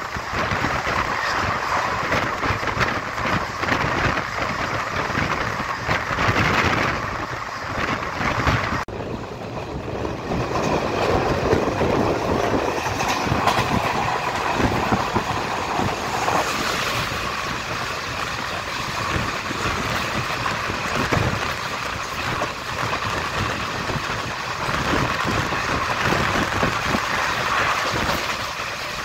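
Steady running noise of a moving vehicle, with an abrupt change about nine seconds in.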